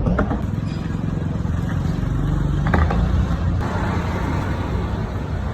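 JBL PartyBox 710 party speaker playing bass-heavy music loudly, with the deep bass the strongest part of the sound.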